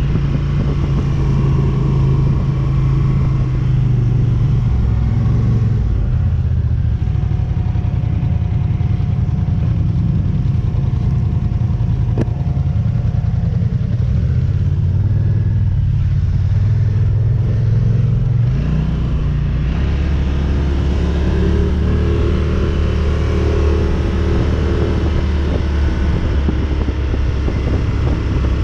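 ATV engine running under way, its pitch rising and falling several times with the throttle and settling lower for the last stretch.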